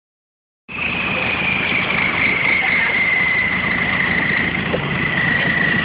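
Vehicle engine running as it drives through floodwater, with water washing and churning along its side, starting about a second in. A high thin whine slowly drops in pitch throughout.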